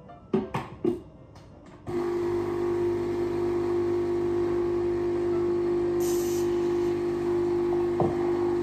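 Nescafé Dolce Gusto capsule coffee machine brewing: a few sharp clicks and knocks in the first second, then about two seconds in the machine's pump starts and runs with a loud, steady hum while coffee pours into the glass. A short hiss comes about six seconds in.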